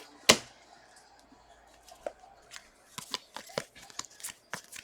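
Trading cards being handled and flipped through on a table. One sharp snap comes about a third of a second in, then a quick run of light clicks and taps as the cards are slid and sorted.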